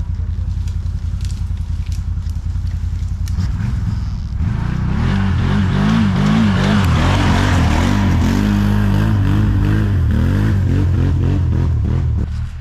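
ATV engine running steadily, then from about four seconds in revving and pulling hard, its pitch rising and falling, with a rushing noise over it.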